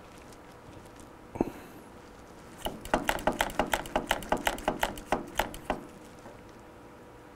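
Clicking from work on a motorcycle's front brake master cylinder bleed fitting during brake bleeding: one sharp click about one and a half seconds in, then a quick run of sharp clicks, about four a second, for some three seconds.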